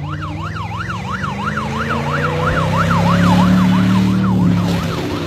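Electronic yelp siren sweeping rapidly up and down, about three sweeps a second, over a running vehicle engine that swells louder around the middle.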